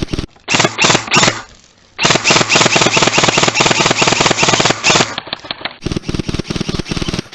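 Airsoft rifle firing on full auto: a short burst of a few shots about half a second in, then a sustained burst of about three seconds at roughly a dozen shots a second. Quieter rapid shots follow near the end.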